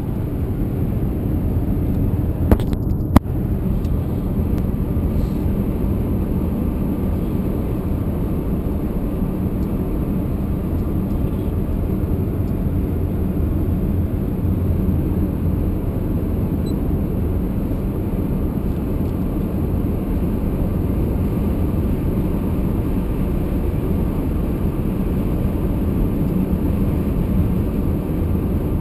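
Steady road and engine noise heard from inside the cabin of a vehicle cruising on a highway. Two sharp knocks come close together about three seconds in.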